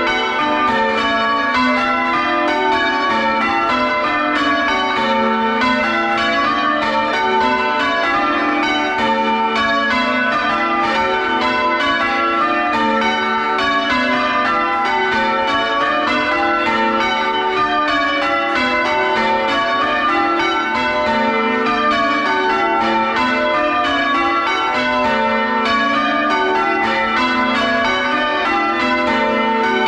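The front six (lightest) bells of a full-circle ring, swung on their wheels and rung in changes, heard close up in the bell chamber. It is a steady, unbroken stream of overlapping bell strikes at an even beat.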